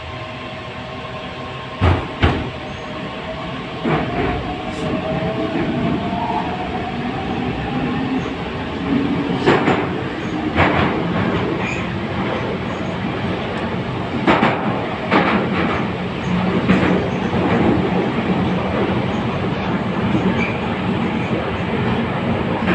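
81-722.1 metro car running through a tunnel, heard from inside the car: a steady rumble, broken by sharp knocks of the wheels over rail joints, and a whine that rises in pitch about four to eight seconds in.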